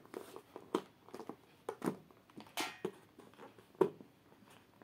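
Irregular clicks, taps and short paper rustles as a neckband earphone is pulled and worked free of its paper and card packaging insert, with a longer rustle about two and a half seconds in.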